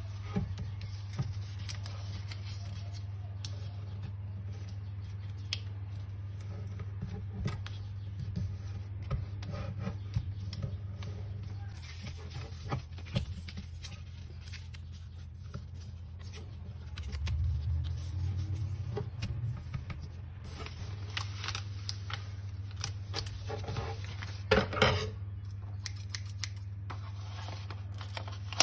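A sheet of paper being folded and creased by hand: rustling, fingers rubbing along the folds and scattered small taps and crackles, over a steady low hum. Two louder sharp crackles come near the end.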